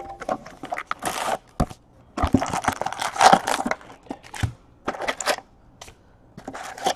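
Rustling and crinkling as card packs are pulled from a cardboard trading-card box and stacked, with light taps and clicks as the packs are set down. The longest burst of rustling comes a couple of seconds in, and the sound thins out near the end.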